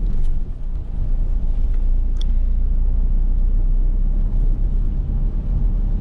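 Steady low rumble of a vehicle in motion, as heard from inside it.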